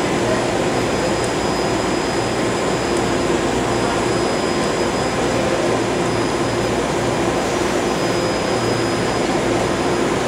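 BART train standing at the platform with its doors open, its onboard equipment giving a steady hum and rush with a few constant tones.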